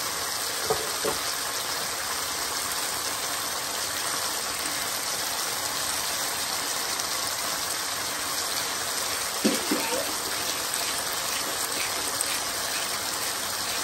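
Keema (minced meat) sizzling steadily in a frying pan, with a few light knocks about a second in and again near ten seconds in.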